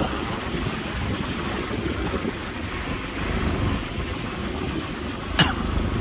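Motorcycle engine running at low speed on a rough gravel track, a steady low rumble. About five and a half seconds in comes one brief sharp sound that falls quickly in pitch.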